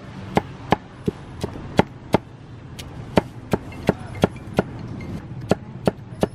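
Cleaver chopping crisp-skinned roast pork on a wooden chopping block, in steady strokes about three a second.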